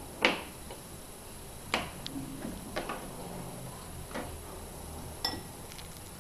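Knife cutting a boiled potato on a plastic cutting board: about five scattered light knocks of the blade against the board. Near the end, the potato pieces are set into a glass bowl with a click and a short ring.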